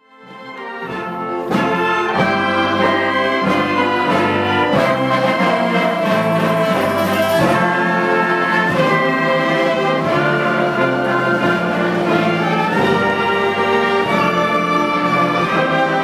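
Student concert band playing a piece, with clarinets, saxophones and brass sounding together. It fades in from silence over the first second and a half, then plays on at full level.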